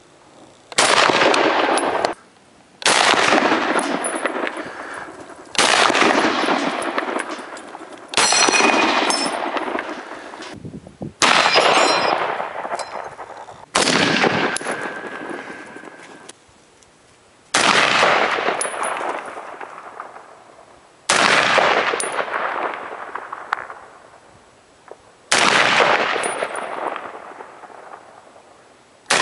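M1 Garand rifle fired nine times, a shot every two to four seconds. Each report is sudden and loud and trails off in a long echo.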